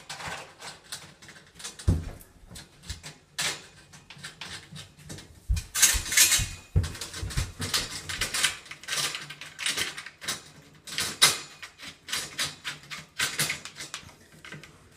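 Irregular clicks, taps and knocks from a chrome curtain pole being handled and fitted into its wall bracket, with a few louder knocks in the middle.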